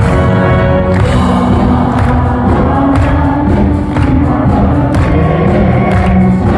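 Loud amplified music with many voices singing together over a steady beat, about one beat a second.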